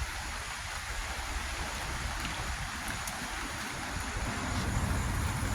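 Steady hiss of falling rain, with a low rumble of wind on the microphone that grows near the end.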